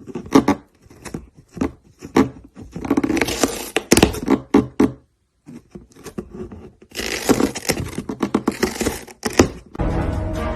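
Irregular scraping, rustling and tapping noises, broken by a short near-silent gap midway. Music comes in near the end.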